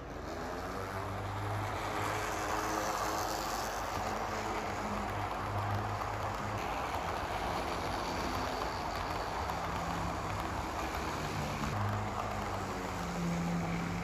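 HO scale model train, a WAP4 locomotive model hauling Garib Rath coaches, running along the track: a steady rolling rumble of wheels on rails, with a low motor hum that shifts in pitch now and then.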